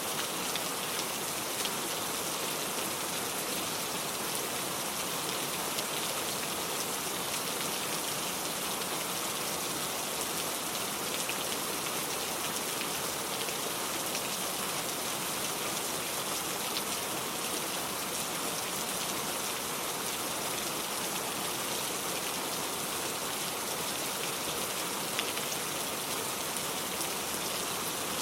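Steady heavy rain falling and pattering on surfaces, an even hiss with occasional sharper drop ticks.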